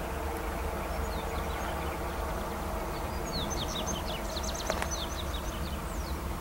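Diesel-electric locomotives of a freight train approaching at a distance with a low, steady rumble, while a bird chirps in quick runs over it from about a second in. A single sharp click comes about two-thirds of the way through.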